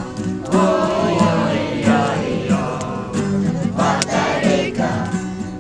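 A group of voices singing a song together to a strummed acoustic guitar.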